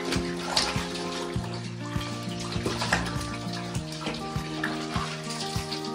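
A thin stream of tap water pouring into a plastic basin, with splashing as a baby monkey is washed in it. Background music plays throughout.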